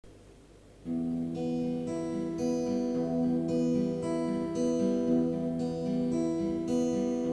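Instrumental introduction of a song, with guitar, starting about a second in: steady, slow chords leading into the verse.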